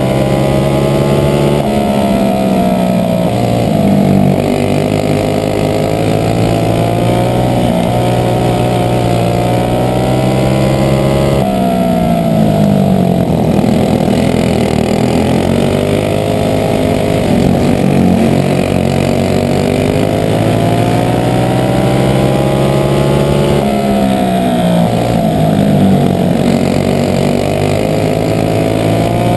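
Briggs & Stratton Animal single-cylinder four-stroke kart engine running on methanol at race pace. Its pitch drops sharply three times, about every eleven seconds, as the throttle comes off for a corner, then climbs back as it accelerates out.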